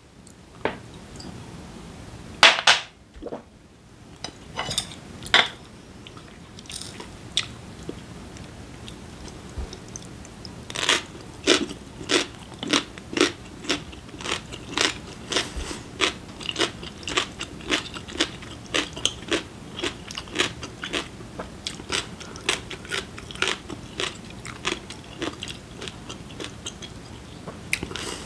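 Close-miked chewing of food, mouth sounds in a steady run of sharp, moist clicks, about one to two a second from around eleven seconds in. A single louder short sound comes about two and a half seconds in.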